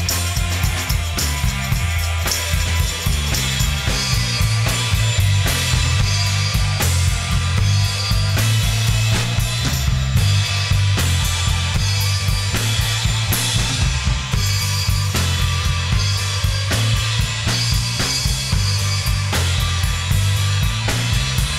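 Rock band playing loudly in a room: drum kit keeping a steady beat, electric guitars, bass, and keyboard, with a tambourine played along.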